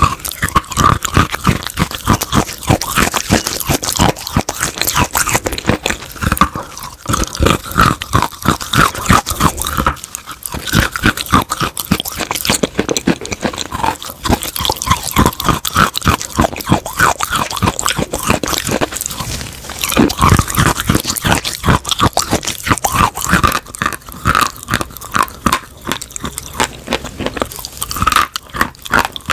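Hard white chalk chunks bitten and chewed right at the microphone: dense, continuous crunching made of many sharp cracks, with a brief lull about ten seconds in.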